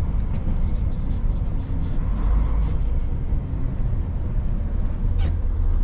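Steady low drone of a Mercedes-Benz tractor unit's engine and road rumble, heard from inside the cab as it drives, with a few light clicks.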